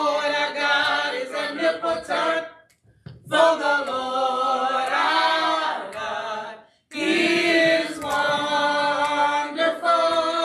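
Small mixed choir of men's and women's voices singing a gospel song a cappella. It comes in three sung phrases, with short breaks about 3 and 7 seconds in.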